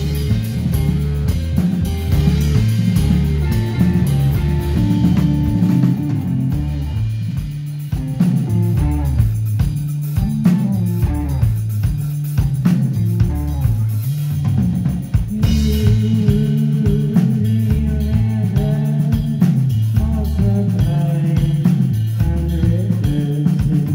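Live psychedelic rock band playing: electric guitars, bass guitar and drum kit, with a heavy bass line. There is a brief dip and full re-entry about two-thirds through.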